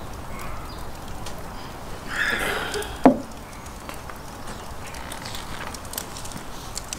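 A heavy glass beer mug is put down on a table with a single sharp knock about three seconds in, just after a short breathy sound at the end of a drink. Faint small clicks follow while eating.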